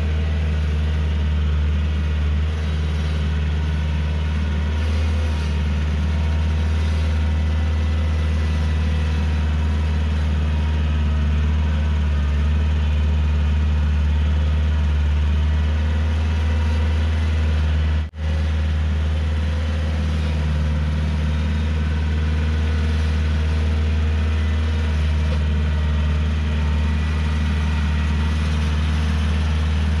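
Tractor engine running steadily under work, a loud, constant low hum that breaks off for a moment about two-thirds of the way through.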